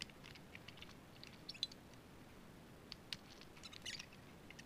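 Faint, scattered small plastic clicks and scrapes of a 1980s G1 Transformers toy being handled, its arms being unfolded and clicked into robot mode.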